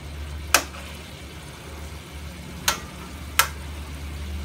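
Metal spatula stirring chayote and dried shrimp in a wok, clinking sharply against the pan three times, about half a second in and twice in the second half, over a low steady hum.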